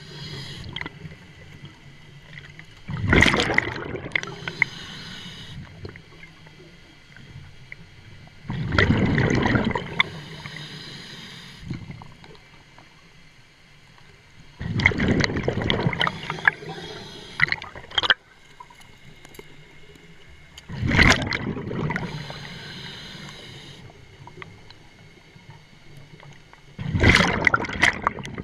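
A scuba diver breathing through a regulator underwater: a loud gurgling rush of exhaled bubbles comes about every six seconds, five times, each followed by a fainter high hiss.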